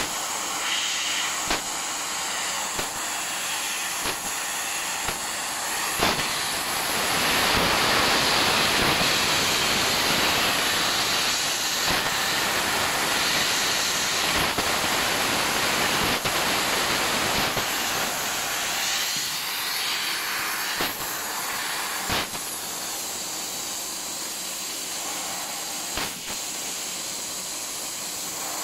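Fiber laser cutting machine cutting sheet metal: a steady hiss of the assist gas jet at the cutting head, louder for a few seconds from about seven seconds in. Short sharp clicks come every second or few as the head moves on to pierce each small hole.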